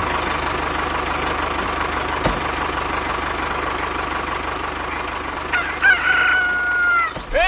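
A steady mechanical hum with a fine rapid ticking. Over it, about five and a half seconds in, comes a loud, long animal call like a rooster's crow, held on one pitch and then falling away.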